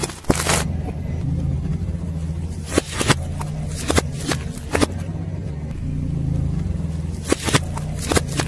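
A car's engine running at low revs while its tyre rolls over objects, crushing them with a series of short, sharp cracks and crunches, about eight in all.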